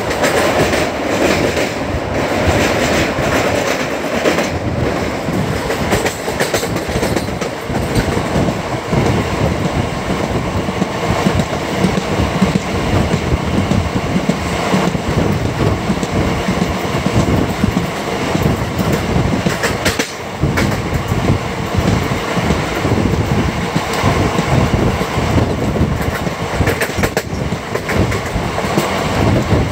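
Andaman Express passenger train running along the track, heard from on board: a steady loud rumble of coach wheels on rails with irregular clickety-clack over the rail joints and a few sharper clanks.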